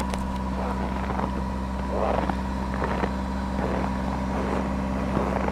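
A steady mechanical hum at a fixed pitch, with soft, irregular swishes of a broom brushing snow off a car.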